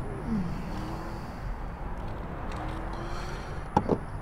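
Steady outdoor background noise, then two sharp clicks close together near the end as a Tesla Supercharger connector is pushed into a Model S charge port.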